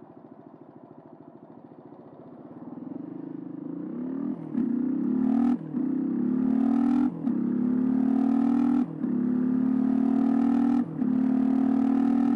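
Suzuki DR125's single-cylinder four-stroke engine idling low, then revving hard as the bike pulls away. The pitch climbs and drops back at each of about five upshifts as it accelerates through the gears.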